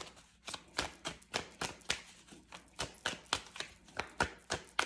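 A deck of tarot cards being shuffled by hand, the cards clicking and slapping together about three or four times a second.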